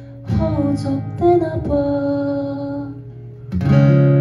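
Acoustic guitar strumming the closing chords of a song: a few strums, then about three and a half seconds in a loud final chord is struck and left to ring.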